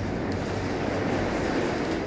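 Heavy rain pouring steadily in a thunderstorm, with a low rolling rumble of thunder underneath and a few faint drip ticks.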